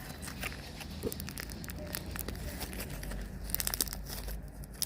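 Sticky slime being squeezed and stretched in the hands, giving a run of small crackling clicks, with a quick cluster of them about three and a half seconds in.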